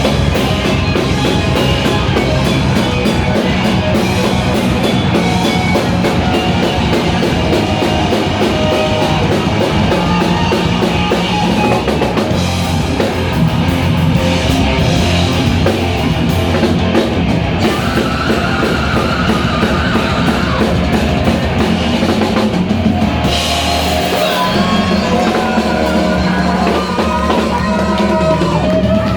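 Rock band playing live: drum kit and guitars going at full volume, the bottom end dropping away briefly about two-thirds of the way through before the full band comes back.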